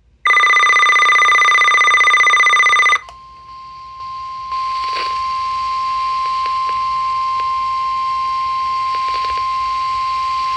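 NOAA Weather Radio emergency alert: a loud, buzzy two-pitch digital data burst (the SAME alert header) for under three seconds, then the steady single-pitch 1050 Hz weather radio warning alarm tone, held for about eight seconds over light radio static.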